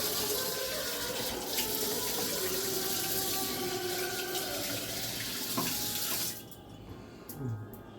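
Water running steadily from a kitchen tap for about six seconds, then shut off.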